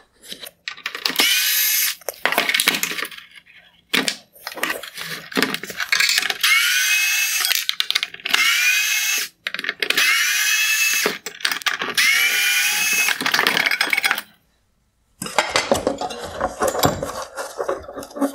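Milwaukee cordless electric screwdriver backing out T20 screws from a plastic headlight housing, running in about seven short bursts of a second or so, each winding up in pitch as the motor spins up. Near the end the tool stops and there is a stretch of plastic clattering and rubbing as the housing is handled.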